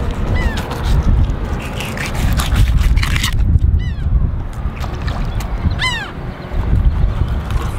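Wind buffeting the microphone, a low rumble that rises and falls. Over it, a bird gives short calls that fall in pitch: once near the start, a quick cluster about four seconds in, and a louder one about six seconds in.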